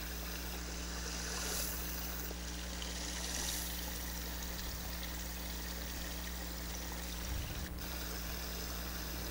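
Small stream of water running steadily in a roadside ditch, a constant trickling.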